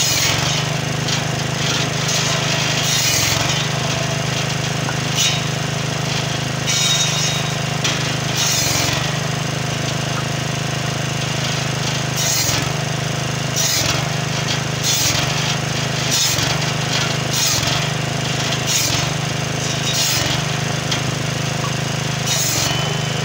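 Petrol-engine-driven circular firewood saw with a carbide-tipped blade cutting acacia logs: the engine runs steadily at half throttle while the blade bites through the wood in a series of short cuts, about one every second or two.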